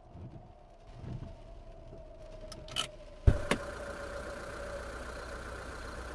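Car engine idling steadily. A little over three seconds in, a single loud thump is followed by a louder, steadier idle hum; before it the sound is quieter, with a few soft low thuds.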